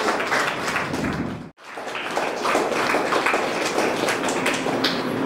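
Audience applauding, a dense patter of many hands clapping, broken by a brief dropout about a second and a half in.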